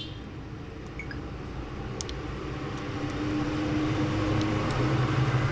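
Low hum of a passing motor vehicle that grows gradually louder, with a few faint small clicks.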